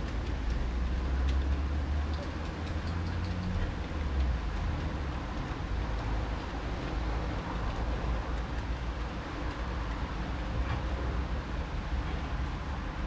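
Distant thunder: a low rumble that swells about half a second in and dies away after some three seconds, over a steady outdoor background noise.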